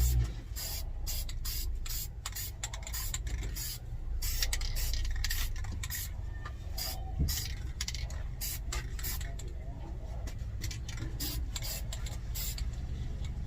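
Aerosol spray-paint can sprayed in many short hissing bursts, one after another, over a steady low hum.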